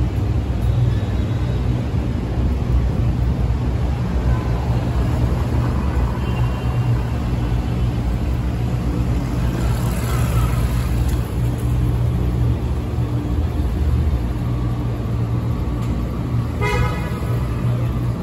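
Steady low rumble of traffic and vehicle engines, with a short horn beep near the end.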